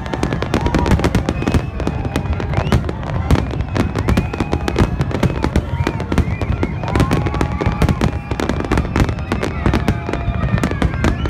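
Dense fireworks barrage: many shells bursting in quick succession, a continuous run of overlapping bangs and crackles with no let-up.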